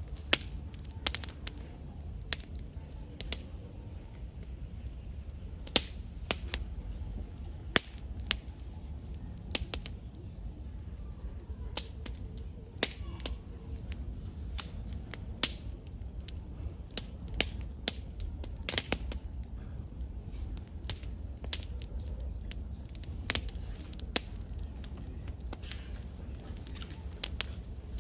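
Wood campfire burning, with irregular sharp crackles and pops over a steady low rumble.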